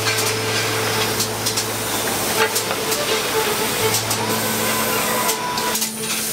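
Factory machinery running: a steady hiss with a low hum that drops out and comes back, and scattered clicks.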